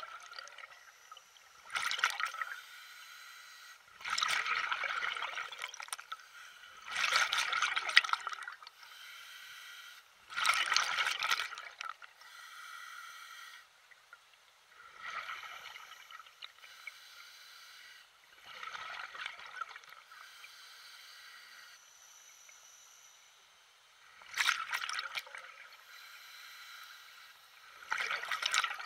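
Water splashing and lapping in irregular surges every two to four seconds, each lasting a second or two, over a faint steady wash.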